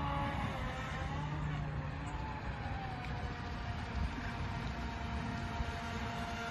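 Distant whine of a HobbyKing Aquaholic V2 electric RC speedboat's brushless motor running on the water, a thin tone that dips slightly in pitch, over a steady low rumble.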